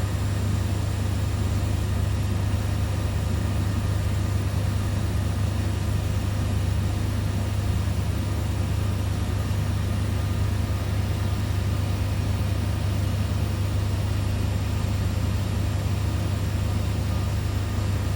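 Steady, unchanging low hum with an even hiss above it, from laboratory equipment running.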